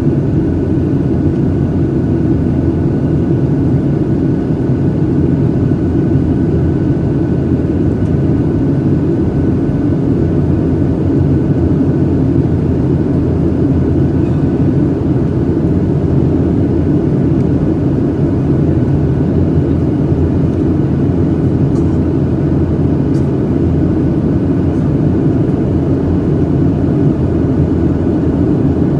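Steady cabin noise of a Boeing 737-800 climbing, heard from a window seat over the wing: the deep, even drone of its CFM56-7B engines and the rush of air past the fuselage.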